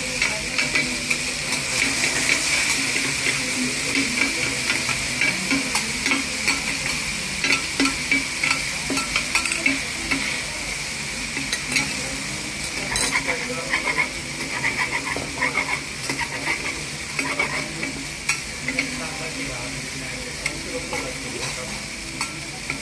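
Chopped cabbage, pork and tofu sizzling on a hot table-top griddle, with metal spatulas scraping, tapping and chopping against the griddle plate in frequent short clicks.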